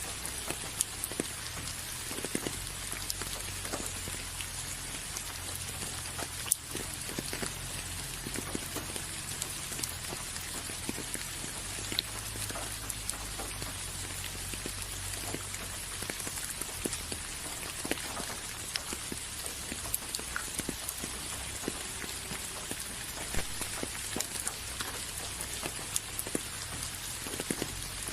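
Steady rain: an even hiss with many separate drops ticking on a surface, over a low steady rumble.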